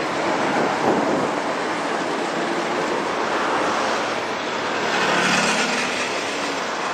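Steady rushing road traffic and wind noise. About five seconds in it swells as a motorcycle engine passes close by.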